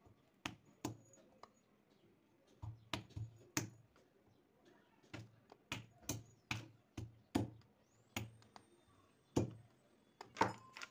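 Green olives being cracked one at a time with a mortar pestle on a plastic sheet: a run of sharp knocks, each with a dull thud, irregular at about two a second.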